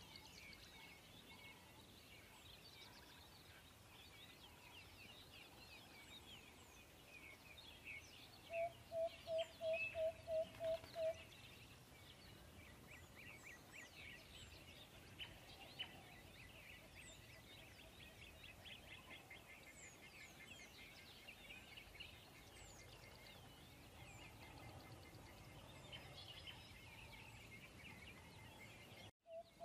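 Faint outdoor birdsong, many small birds chirping and twittering. About a third of the way in, a louder call of about nine quick, evenly spaced notes on one pitch; the same call starts again right at the end.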